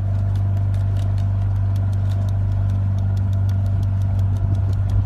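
A loud, steady low hum like an idling motor, with fast regular ticking over it, about five ticks a second.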